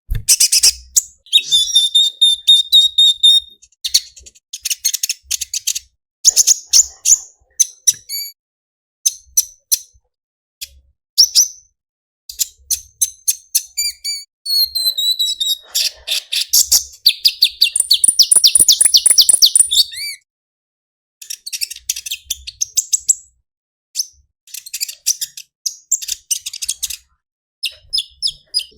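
Small songbird singing phrases of rapid, high-pitched twittering chirps, one phrase after another with short pauses between.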